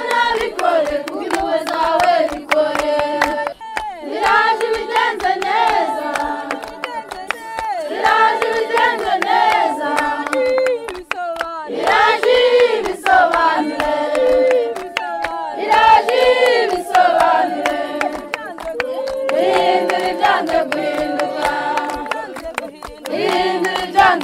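Congregation singing a church song in chorus, in phrases a couple of seconds long, with hands clapping steadily in time throughout.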